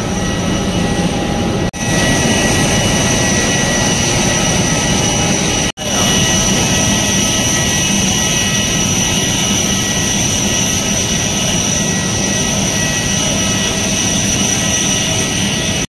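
Jet airliner engines running, a loud steady noise with a high whine over it, cutting out for an instant twice.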